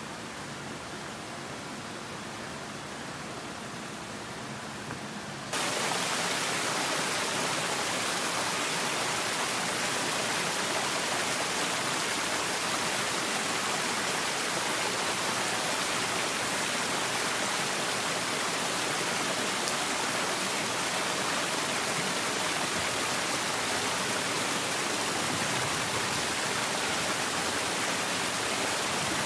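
Steady rushing of a garden stream cascading over rocks. It gets suddenly louder about five seconds in, then holds steady.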